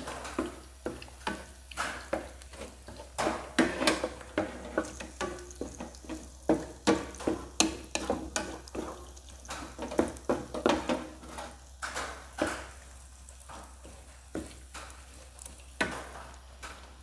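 Egg whites sizzling in hot oil with minced garlic in a nonstick frying pan while a wooden spatula stirs and scrapes them in quick, irregular strokes. The strokes thin out near the end.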